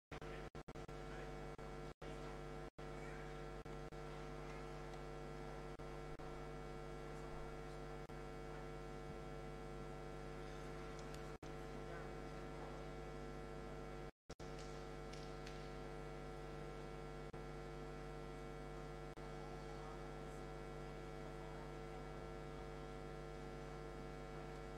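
Steady electrical mains hum, a low buzz made of many steady tones, with no other sound over it. It cuts out for an instant a few times, once about fourteen seconds in.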